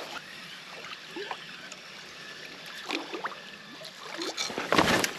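River water trickling and lapping around a small fishing boat, with a few faint knocks and a louder brief thump near the end.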